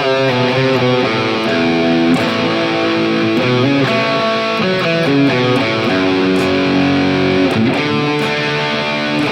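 Electric guitar played through a digital modeling unit, a melodic lead line of held notes with wavering vibrato.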